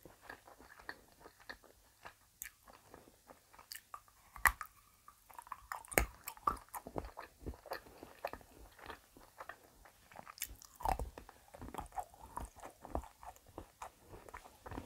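Close-miked mouth sounds of a person eating plain milk chocolate egg: soft wet chewing clicks and smacks, with a few louder bites scattered through.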